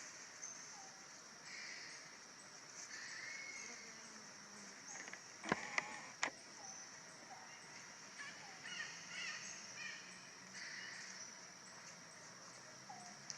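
Outdoor ambience: a steady high insect drone that switches on and off in stretches, with scattered short animal or bird calls and three sharp clicks or snaps about halfway through.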